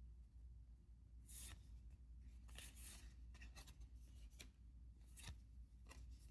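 Faint, short scrapes of trading cards sliding against one another as they are flipped through one at a time, about five strokes spread over a few seconds.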